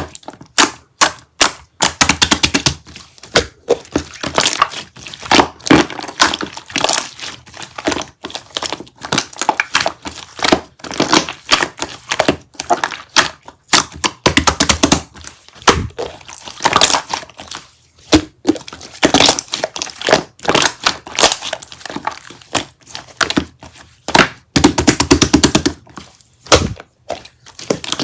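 Close-up handling noise: dense runs of sharp clicks, taps and knocks in quick clusters with short pauses, as of small objects being handled.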